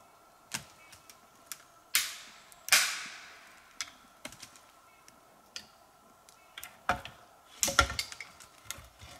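Dry twigs and fallen branches cracking and snapping on the forest floor, with brief rustles of dry leaves. The strikes are sharp and separate: loud ones about two and three seconds in, and a close cluster near the end.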